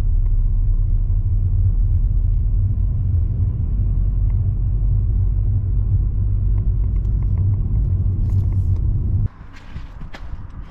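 Steady low rumble of a car driving along a road. It cuts off abruptly about nine seconds in, leaving a much quieter background with a few faint clicks.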